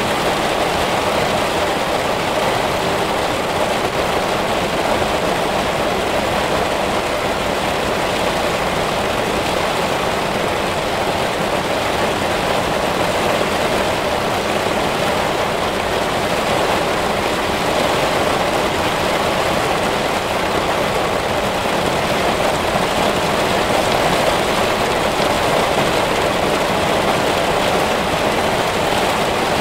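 Heavy rain pouring steadily onto spruce branches: a dense, even rushing hiss that does not let up.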